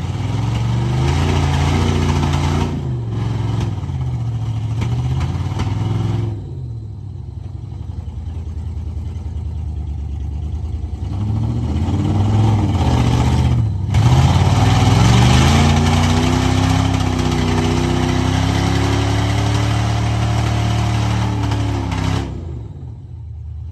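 Jeep engine running off-road, its revs rising and falling. It settles lower for several seconds, climbs and holds higher revs from about halfway, then drops off sharply near the end.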